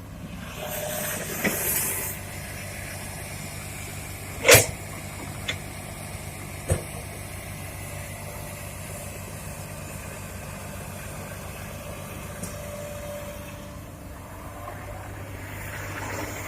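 Heavy diesel machinery of an excavator loading a dump truck: a steady engine hum, with a hiss in the first couple of seconds, a loud knock about four and a half seconds in and two lighter knocks after it.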